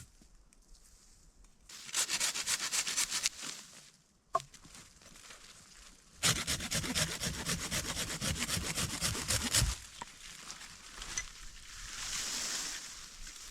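Hand saw cutting wood in two bouts of quick back-and-forth strokes, the second bout longer.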